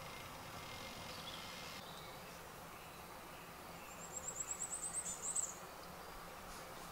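A small songbird singing a very high, rapid trill of repeated short notes that ends in a brief, louder flourish, about four seconds in, over a quiet, steady woodland background.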